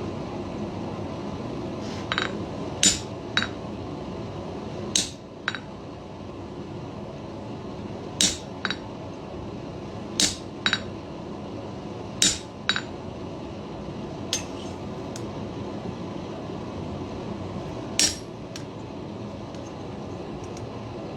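Hand hammer striking a half-round chisel to cut the mouth lines into an iron bulldog head: about a dozen sharp, ringing metal blows, mostly in pairs about half a second apart with pauses of a second or two between, over a steady low background rumble.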